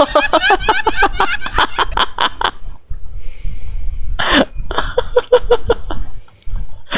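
A person's rapid vocal bursts, about five a second, that stop for a moment near the middle and start again after a short, sharp breathy burst.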